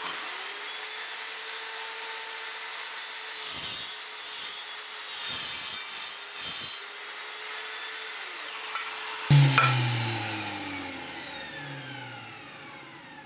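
Evolution R185 CCSL circular saw, with its 1200 W motor and multi-material TCT blade, cutting through a block of timber with embedded nails, with a couple of louder stretches partway through. About nine seconds in the sound changes abruptly and a falling whine follows as the blade runs down under its electronic brake.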